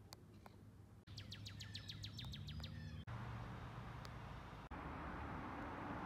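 A small bird chirping in a rapid trill, about seven notes a second for two seconds, over a low traffic hum that rises briefly. Then a steady hiss.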